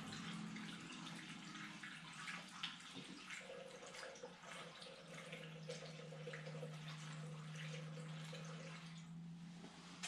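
Fuel poured from a plastic jerry can into a Vespa scooter's open fuel tank, a steady splashing pour that tails off near the end.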